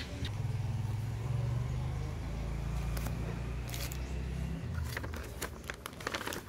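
A low engine hum, as of a motor vehicle running close by, for about four seconds before it drops away abruptly. It is followed by a run of sharp clicks and crackles.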